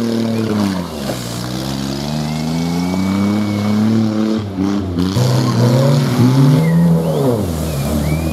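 Engines of home-built off-road buggies revving hard as they power through mud, the pitch climbing and dropping again and again.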